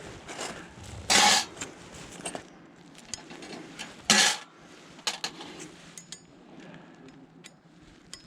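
Small metallic clinks and clicks of camp gear being handled, with two loud knocks about three seconds apart.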